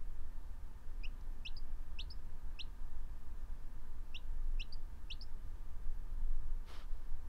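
A Pekin chick peeping: eight short, high, upward-sliding peeps in two quick runs of four, about three seconds apart.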